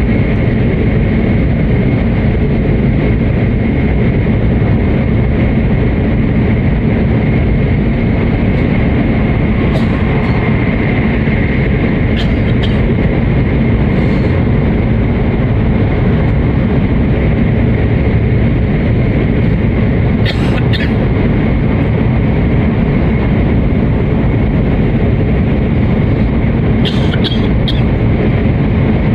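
Hokuriku Shinkansen train running at speed through a tunnel, heard inside the passenger car: a loud, steady rumble of running noise with a faint steady whine above it. A few brief sharp clicks come now and then.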